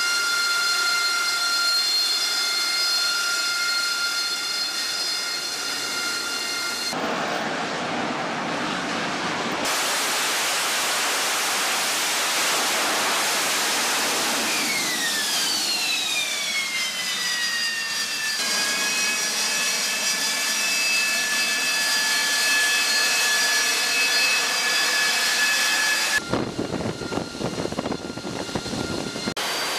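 AV-8B Harrier II jet engine running: a loud roar with a steady high-pitched whine, changing abruptly a few times. For a few seconds around the middle the whine falls in pitch.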